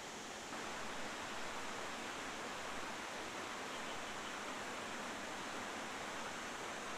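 Steady hiss of heavy rain, growing slightly louder about half a second in.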